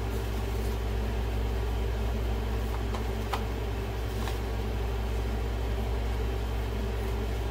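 Steady low machine hum with a few faint, light clicks.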